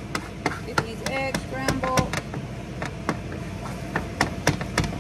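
Wooden spatula knocking and scraping on a flat griddle as scrambled eggs are stirred: quick, irregular taps over a steady low hum from the stove's vent fan.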